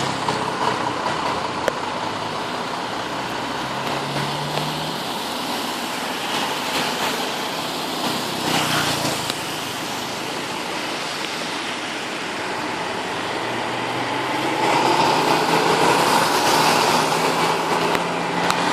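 Heavy rain pouring down in a steady hiss, with the low hum of vehicle engines underneath that grows louder for the last few seconds.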